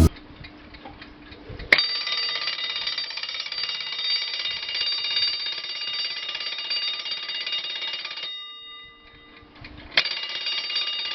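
Vintage Jaz alarm clock's bell ringing. It starts suddenly about two seconds in, stops for about two seconds near the end, then rings again.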